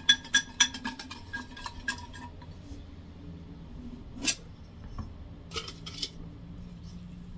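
A hard container shaken with small objects inside: a fast rattle of ringing clinks that stops about two seconds in. A single sharp click follows a little past four seconds, then a short rustle near six seconds.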